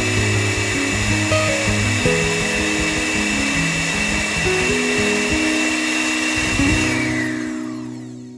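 Background music over the steady high whine of the miniature cement mixer's small electric motor turning its drum. Near the end the whine drops in pitch and the sound fades out.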